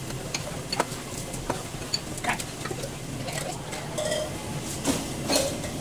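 Scattered sharp clinks of ceramic bowls and metal utensils being handled on a metal tray, over a steady low background hum.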